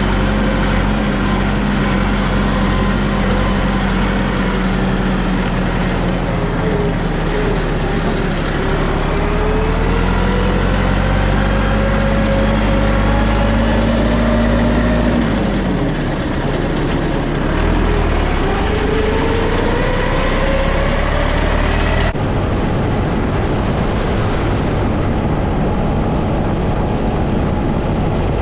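Farm tractor engine running steadily and loudly, its pitch dipping and picking up again several times as engine speed changes. About two-thirds of the way through the sound changes abruptly.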